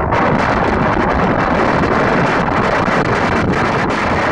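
Strong wind buffeting the microphone, a loud, steady rushing noise, over rough surf breaking on a sandy beach.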